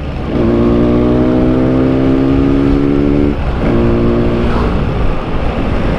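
Yamaha RX-King's two-stroke single-cylinder engine running under way at a steady pitch. Its note drops out briefly twice, near the start and about three seconds in. In the last couple of seconds it fades under wind rushing on the helmet microphone.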